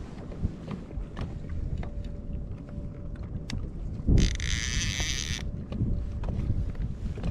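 Fishing reel's drag buzzing for about a second as a hooked lingcod pulls line, over a low rumble of wind on the microphone and scattered light clicks.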